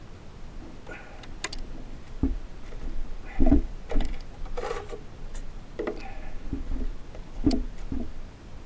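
Irregular clicks and knocks of hard plastic being handled, about half a dozen spread over several seconds, as the Makita DUN461WZ cordless long-reach hedge trimmer is moved about without its motor running.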